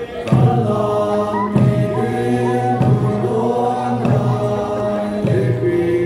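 A group of voices singing a chant-like song in unison, held notes over a regular low beat that comes about once every 1.2 seconds.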